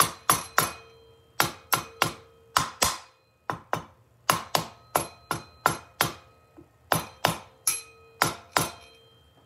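Rubber mallet tapping a Honda CB350's cam base down onto its locating dowels on the cylinder head, because it would not seat by hand: about twenty sharp taps in quick groups of two to four, each with a short ring, stopping near the end.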